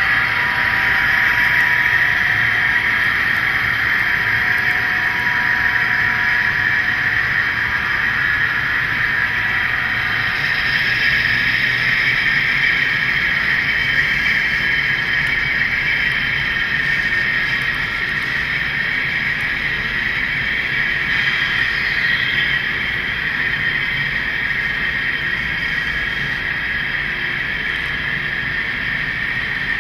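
Model train running on the layout's track: a steady whirring hiss of the locomotive motors and the wheels rolling on the rails.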